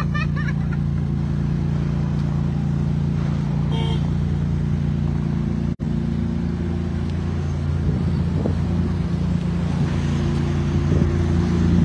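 Maserati MC20 Cielo's twin-turbo V6 idling steadily, with an even low hum. The sound cuts out for an instant about six seconds in.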